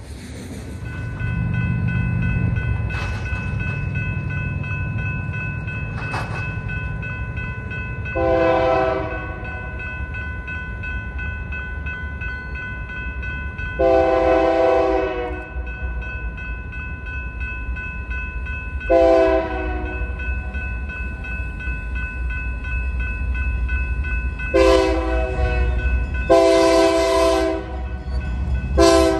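Diesel locomotive air horn sounding the grade-crossing signal as a freight train approaches: two long blasts, a short one, then longer blasts, over a steady low rumble. The lead unit is a GE wide-cab diesel in Santa Fe warbonnet paint.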